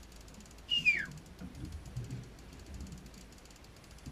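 A spinning reel being wound against a fish, with faint rapid clicking and low rumble throughout. About a second in comes a short, loud whistle that falls in pitch.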